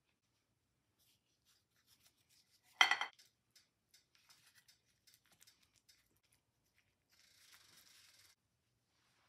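Faint handling sounds of a floured chicken breast being dipped and turned in a dish of beaten egg, Parmesan and parsley: soft rubbing and scattered clicks, with one brief louder knock against the dish about three seconds in. Near the end comes a soft wet squishing for about a second as the breast is pressed into the coating.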